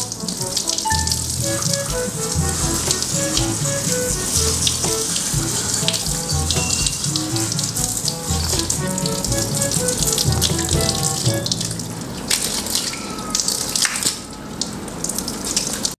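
Water from a garden hose spraying onto a monkey's fur as it is bathed, with background music playing throughout: short melodic notes over a repeating bass line.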